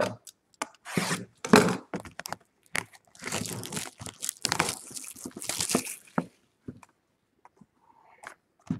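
Trading-card box packaging being torn open and handled: crinkling and tearing in irregular bursts over the first six seconds, then a few light clicks.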